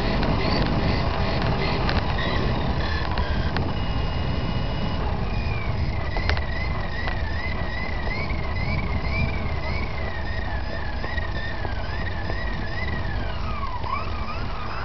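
On-board sound of an RC model car driving over a concrete deck: a loud, steady rumble of the wheels and chassis. From about five seconds in, a thin high whine rises and falls again and again, then dips near the end.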